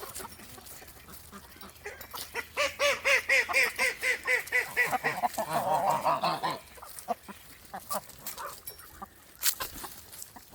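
Domestic waterfowl calling: a fast run of repeated honking calls, about four or five a second, starting a couple of seconds in, running into a rougher burst of calling, then dying away to scattered soft clicks.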